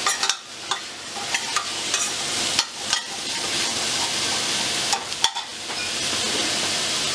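Diced carrots, celery and onion sizzling in hot oil in a stainless steel pot, stirred with a metal spoon that clicks and scrapes against the pot. A little past five seconds in, the spoon is set down with a knock, and the steady sizzle carries on.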